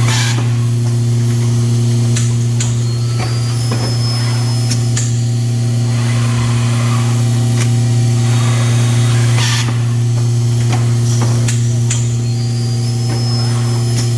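Automatic face-mask packaging and band-sealing machine running with a loud, steady electric hum. Sharp clicks of its mechanism come at irregular intervals, with a short hiss right at the start and another about nine and a half seconds in.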